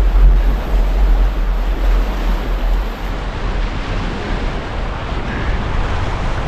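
Whitewater rapid rushing loudly, with wind buffeting the microphone. The low wind rumble is heaviest for the first three seconds, then eases.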